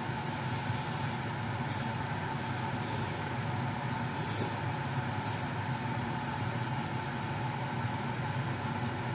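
Noodles being slurped off chopsticks: about five short, hissy slurps in the first five seconds or so, over a steady low hum in the background.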